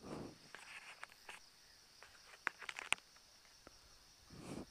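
Faint, steady, high-pitched insect chirring from the roadside woods, with a few scuffs and sharp clicks of footsteps and handling near the middle.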